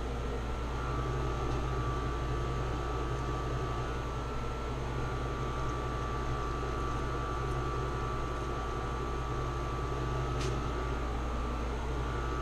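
Room air conditioner running steadily, a constant hum and whoosh with a faint whine, and one faint click about ten seconds in.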